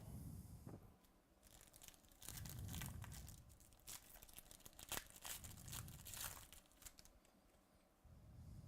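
Faint rustling and crinkling of baseball trading cards being handled and shuffled, with soft clicks and one sharper click about five seconds in.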